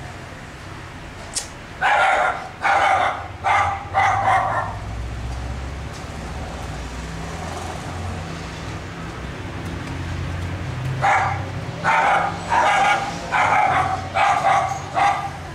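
A dog barking in two runs: four barks about two seconds in, then a longer string of about eight barks from about eleven seconds on.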